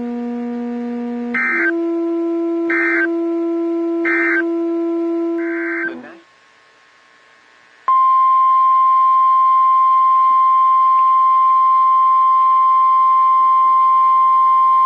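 Emergency alert tones. First come short digital data-burst beeps, about one every 1.3 seconds, over a steady droning tone; these are the end-of-message bursts closing the alert. After a brief gap, about eight seconds in, the loud steady single-pitch NOAA Weather Radio 1050 Hz warning alarm tone starts and holds, announcing the next warning.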